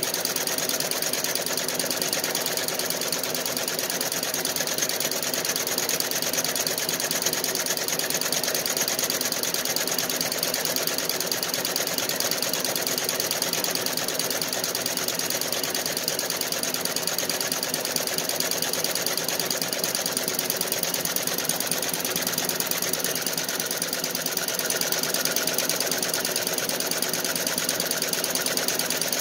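Feiyue multi-needle commercial embroidery machine running, its needle head stitching rapidly in a steady, even rhythm.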